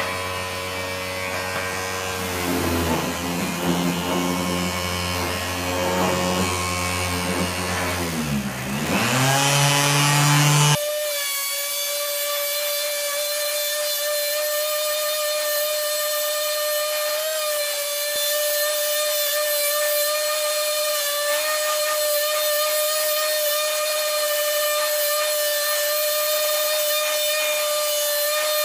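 Parkside PMFS 200 C3 multi-function sander, fitted with its rectangular orbital-sander base, running at maximum speed and sanding paint off a wooden board, its motor pitch dipping and recovering as it is pressed onto the wood. About eleven seconds in the sound changes suddenly to a higher, steady whine as the footage is played sped up four times.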